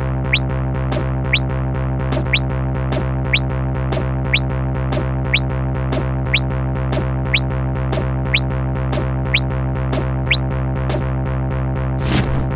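Electronic background music: a held synthesizer chord over a steady beat of about two strokes a second, with a short rising chirp about once a second. The texture turns noisier near the end.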